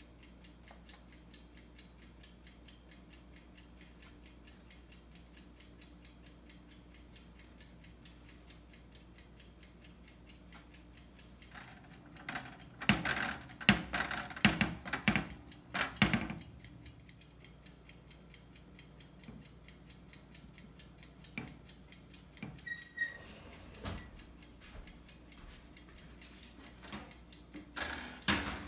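A steady low hum with scattered knocks and clatters of handling. The loudest cluster comes about halfway through. Near the end a metal baking sheet clanks as it is lifted off the stovetop.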